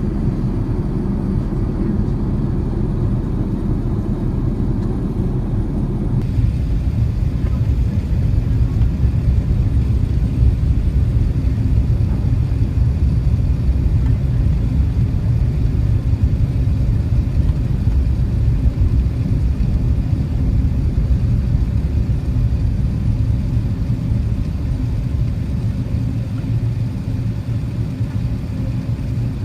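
Steady low rumble of an Airbus A380 cabin, with engine and airflow noise heard from inside. The rumble changes character abruptly about six seconds in, then carries on evenly.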